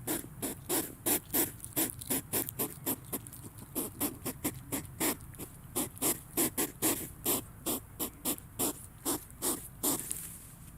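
Hedgehog making a rapid run of short, breathy puffs, about three a second, which stop shortly before the end.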